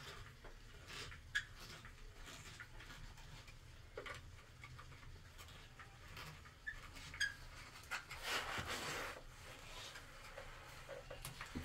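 Faint handling noise from fitting a small white plastic wall fitting by hand: scattered light clicks and taps, with a longer scraping rustle about eight seconds in.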